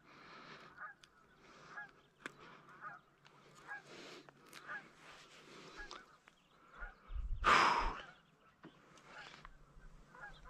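Geese honking over and over, about one call a second. About seven and a half seconds in, a loud rough rustle close to the microphone covers them briefly.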